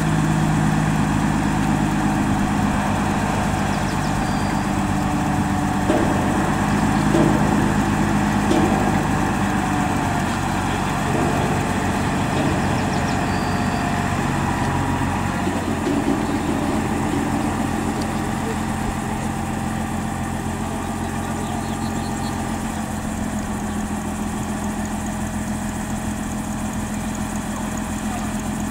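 Truck-mounted crane's engine running steadily as it powers the lift. It is a little louder and uneven in the first half, then settles steadier and slightly quieter after the middle.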